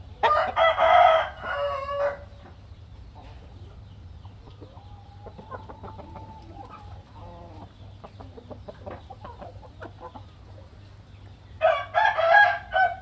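Roosters crowing twice: one crow about two seconds long just after the start, and a second one near the end.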